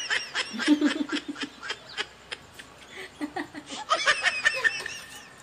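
A woman laughing in quick, choppy bursts, once at the start and again about four seconds in.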